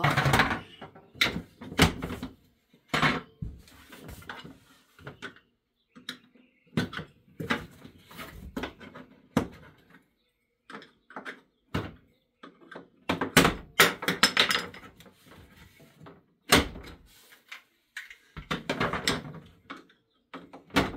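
Hard plastic pieces of a One Fast Cat cat exercise wheel being unclipped, handled and set down: irregular clacks and knocks with a few short rattling clusters, and a brief lull about ten seconds in.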